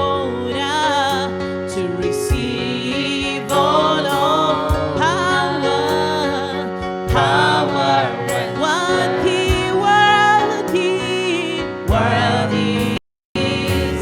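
Live gospel worship music: a singer holds long, wavering notes over sustained keyboard chords, with drum hits. The sound cuts out completely for a split second near the end.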